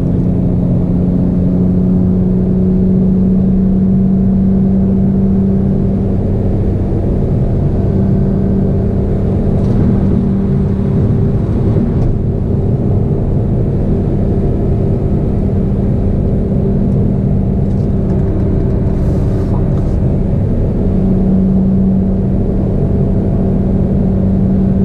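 BMW E46 M3 cruising at freeway speed: a steady engine drone over road and wind rumble, unchanging throughout.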